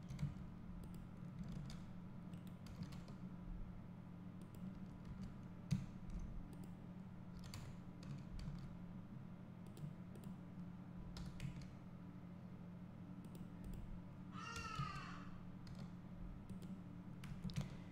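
Sparse, faint clicks of a computer keyboard and mouse over a steady low hum.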